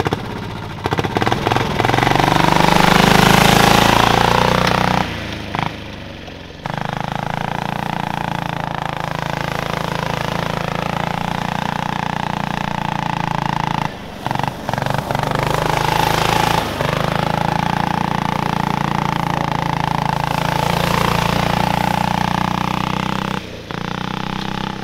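Small single-cylinder 199cc diesel engine with an RBH31 turbocharger driving a go-kart under throttle, its pitch rising and falling as it revs, with the turbo spooling up, not crazy loud. The sound breaks off and restarts a few times as separate runs are joined.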